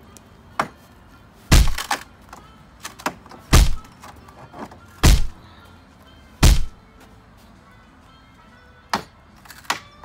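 Wooden pallet crate being smashed: four loud cracking thuds of blows on the timber, about one and a half to two seconds apart, with a few lighter knocks around them.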